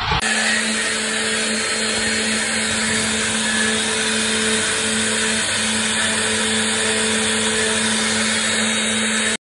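Multi-spindle CNC wood-carving router with its spindles running and the bits cutting into wooden blanks: a steady machine whine over a dense, even cutting noise.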